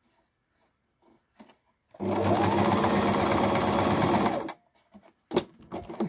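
Sewing machine running in one short burst of stitching, starting about two seconds in and stopping about two and a half seconds later, followed by a few light clicks.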